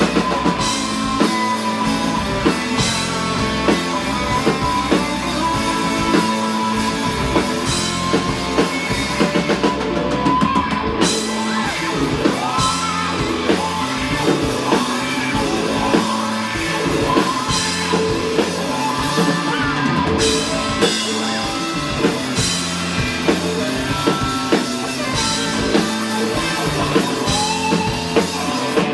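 Live rock band playing: drum kit, electric guitar and a singing voice.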